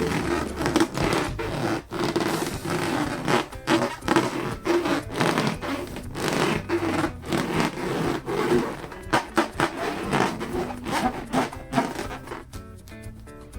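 Latex balloons rubbed and squeezed by hand: a dense, irregular run of squeaks, scrapes and crackles that thins out near the end.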